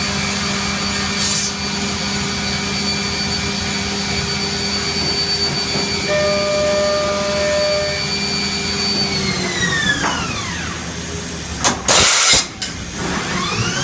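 Mazak VCN 510C vertical machining center running with a steady whine. Near the end the whine winds down, a loud half-second burst of noise follows, and the whine then climbs back up, the pattern of the spindle stopping and restarting around an automatic tool change.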